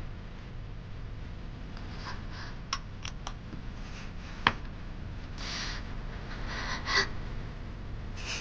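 A few small sharp clicks, like porcelain medicine bottles handled on a wooden tray, then soft rustling of cloth as a wound is dressed.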